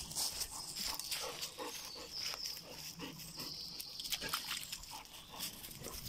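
A Labrador retriever close by making short, irregular breathing sounds rather than barks, over the rustle of dry leaf litter underfoot.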